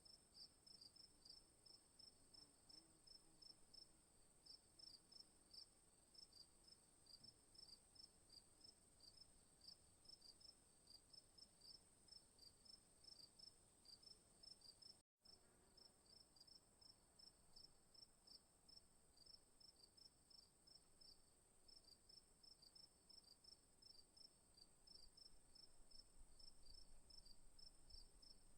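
Faint night chorus of crickets: short chirps repeating about three times a second over a continuous high-pitched insect trill. The sound cuts out completely for a moment about halfway through.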